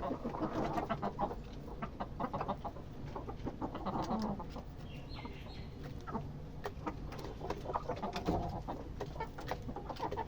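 Chickens clucking, a run of many short, overlapping calls.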